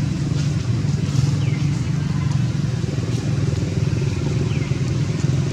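A steady low drone like a small engine running, with two brief high descending squeaks, one about a second and a half in and one near the end.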